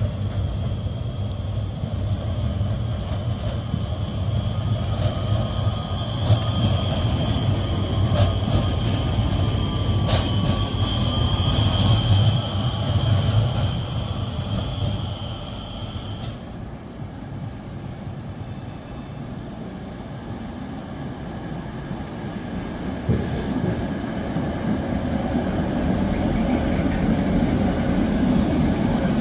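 Electric trams rolling over street track. A low-floor tram runs past with a low rumble and a steady high-pitched squeal that cuts off suddenly a little past halfway. An older Tatra articulated tram then approaches, its rolling rumble growing louder toward the end.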